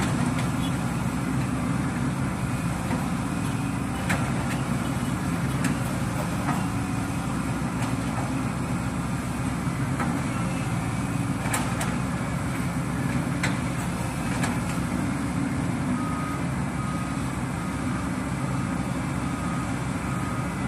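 Excavator's diesel engine running steadily, with several sharp knocks scattered through.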